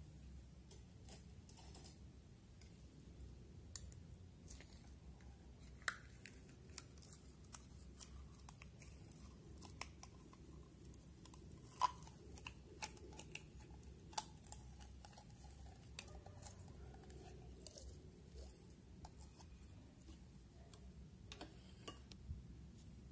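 Faint sticky clicks and small pops of clear slime being pulled out of a plastic jar with a wooden stick, with the odd knock of the jar. The scattered ticks sit over a low hum, with louder clicks about six and twelve seconds in.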